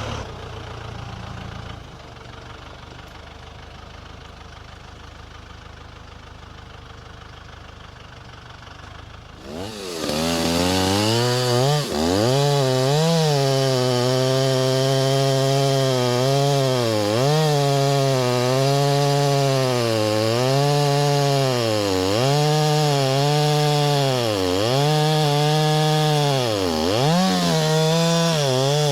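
A low engine idling quietly. About nine seconds in, a Stihl MS 390 chainsaw revs up and cuts into a red oak log, its pitch dipping and recovering again and again as the chain bogs under load in the wood.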